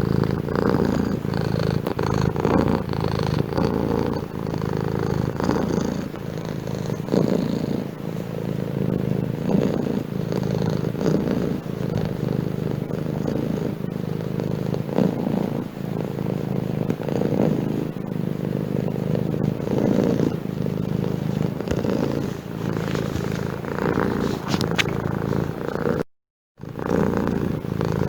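Domestic cat purring steadily, the low rumble swelling and easing every couple of seconds with its breathing. The purr breaks off completely for about half a second near the end.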